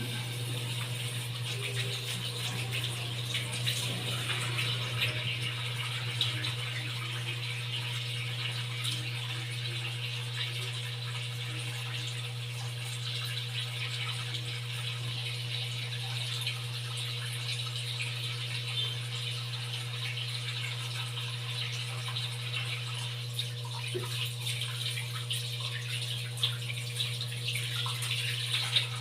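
Water running steadily from a tap while hands are washed under it, with a steady low hum underneath and a few small knocks.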